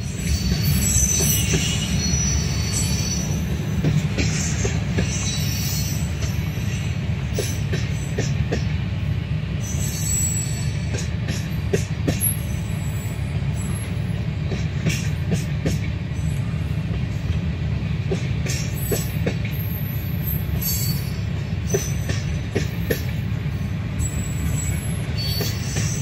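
Freight train of covered hoppers and tank cars rolling slowly past: a steady low rumble of steel wheels on the rails, with on-and-off high-pitched wheel squeal and scattered knocks.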